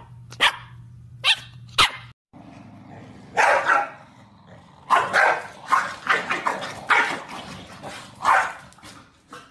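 Corgis barking: a few short, sharp barks in the first two seconds, then a run of about nine repeated barks, some in quick pairs, from a tricolour corgi.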